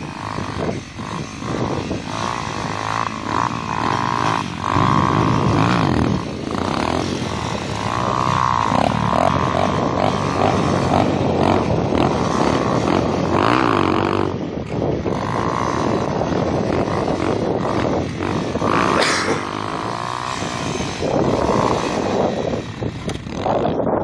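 Dirt bike engine revving up and down over and over, its pitch repeatedly rising and falling as the throttle is worked.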